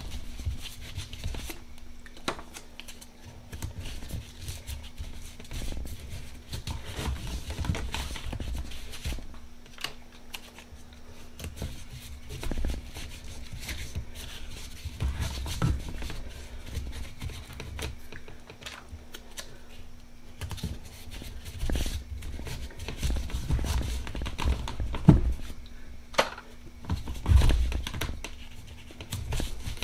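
Tape being pulled off the roll and pressed around a cardboard firework ball shell, with irregular scratching, rustling and crinkling, and a few louder knocks as the shell is handled on the bench, mostly in the second half. A faint steady hum runs underneath.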